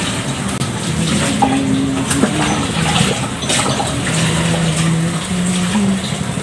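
Water running steadily from a tap during dishwashing, with a few brief clicks and a low hum that shifts in pitch now and then.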